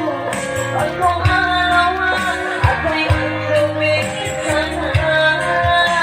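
Tausug pop song: a voice singing a wavering melody over a band backing with a steady bass line and regular drum hits.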